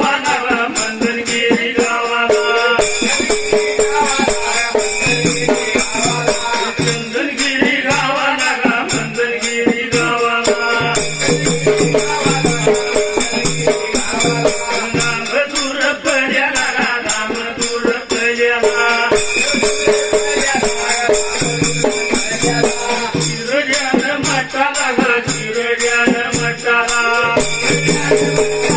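Dhangari ovi folk music: a steady, repeating beat under a continuous jingling rattle, with a wavering melody over it.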